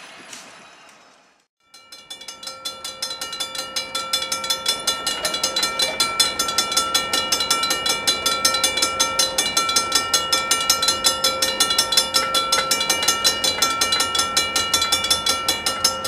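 Railroad crossing bell ringing in rapid, even strokes while the crossing lights flash and the gate arms lower. The first second and a half is a fade to near silence before the bell starts.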